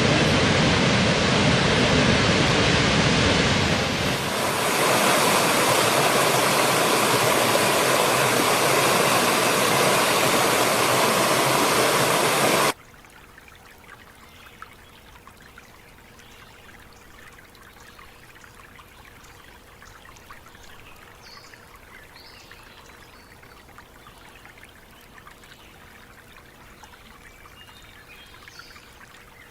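Loud, steady rushing water, cutting off abruptly about a third of the way in to a much quieter trickling stream. A few faint high chirps come in during the quiet part.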